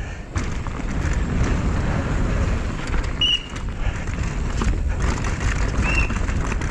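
Downhill mountain bike riding fast over a dirt trail, heard from a GoPro on the rider: steady rumble of wind and tyres on dirt, with repeated knocks and rattles of the bike over bumps.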